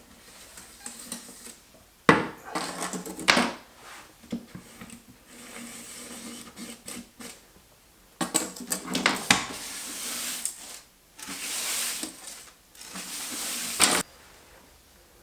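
Hard tile being handled and fitted into place over plumbing pipes: scattered sharp clinks and knocks of tile against tile, with stretches of scraping as it slides into position in the second half.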